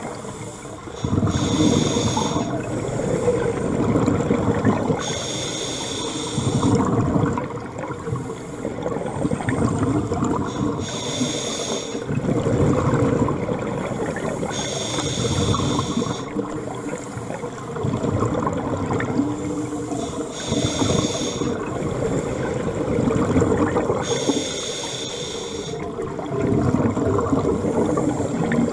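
Scuba regulator breathing underwater: a hissing inhale with a faint whistle about every four to five seconds, and bubbling exhalations in between.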